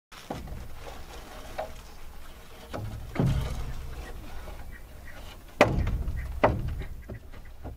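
Wooden boards being handled, knocking and thudding: three dull thuds about three, five and a half and six and a half seconds in, over scraping and handling noise.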